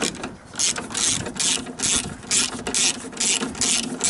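Hand ratchet with a 10mm socket on an extension undoing a window regulator bolt in a car door, its pawl clicking in repeated back-and-forth strokes, about two a second.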